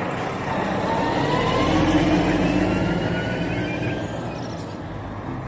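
Large tanker semi-truck driving past: a steady engine drone that swells to its loudest about two seconds in and then fades as it moves away.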